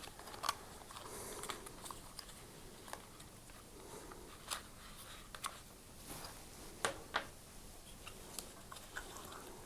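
Faint handling sounds: scattered light clicks and rubbing as a rubber drive belt is worked off the spindles of a Flymo UltraGlide lawnmower's plastic motor housing.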